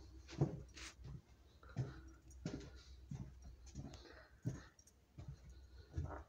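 Footsteps of a person walking at a steady pace along a hallway floor, each step a short, soft thud with a little shoe scuff, over a low steady hum.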